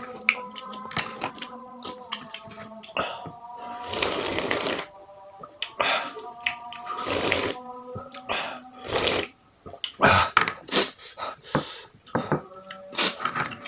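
Noodle soup being slurped and chewed close to the microphone: several loud slurps of about a second each, with wet chewing clicks between them, over quiet background music.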